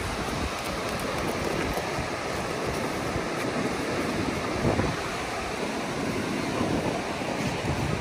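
Steady rush of ocean surf, with wind buffeting the microphone in a low, uneven rumble.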